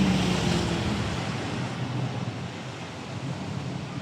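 Street traffic with a motor vehicle passing: its engine hum is loudest at the start, then drops in pitch and fades as it moves off.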